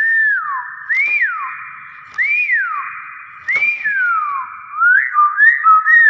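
Hill myna whistling: loud, clear whistles, each rising and then sliding down, three in a row about a second and a quarter apart, then a quicker run of short whistled notes near the end.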